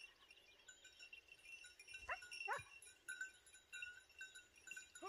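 Segugio Italiano hounds giving tongue on hare scent: two short, faint yelps falling in pitch, about half a second apart, a couple of seconds in, and another beginning right at the end.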